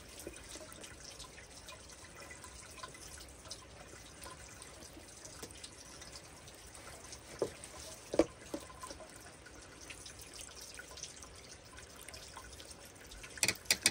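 Thin stream of water trickling and dripping from a PVC pipe into a plastic gold pan of black sand, with two louder plops about seven and eight seconds in.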